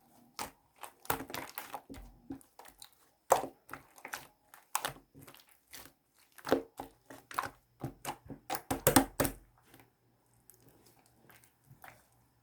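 Irregular clicks, knocks and crinkling of objects being handled at close range, busiest about nine seconds in, then thinning to a few faint ticks.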